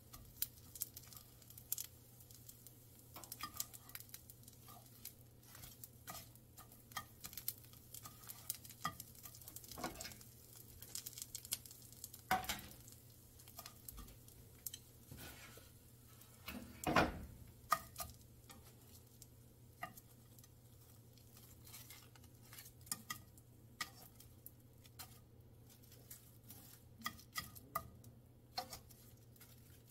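Wooden chopsticks tapping and scraping in a frying pan as oiled laver sheets are toasted and lifted out one at a time, with light crackling of the seaweed. The sound is a run of scattered small clicks over a low steady hum, with a couple of louder knocks about 12 and 17 seconds in.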